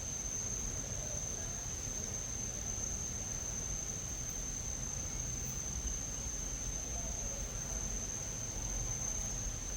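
Tropical forest ambience: a steady, high-pitched insect drone over a low rumble.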